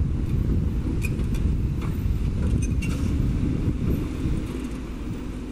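Heavy diesel engine of a crawler excavator running with a steady low rumble, with a few faint clinks over it; the rumble eases a little near the end.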